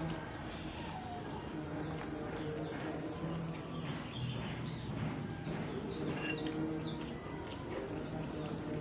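Close-miked chewing and crunching of raw papaya stem, a run of short crisp crunches. Birds chirp in the background, with short falling calls in the middle.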